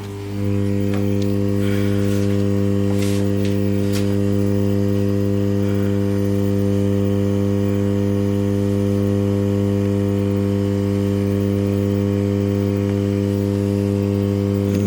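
Steady electrical hum with a low drone and several overtones, typical of a hot-air rework station's blower running while heating the board to lift the processor. It steps up in loudness about half a second in, then holds steady.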